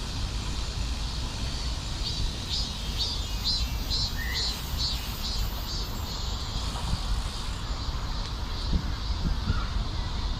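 A bird calling a quick series of about a dozen short, harsh notes, a few a second, with a single short chirp among them, over a steady low rumble.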